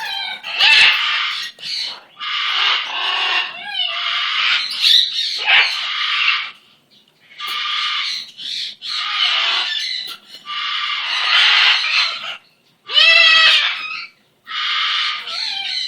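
A large pet parrot giving a long run of raspy squawking calls, each a second or two long with short pauses between. About 13 seconds in comes a clearer, pitched call.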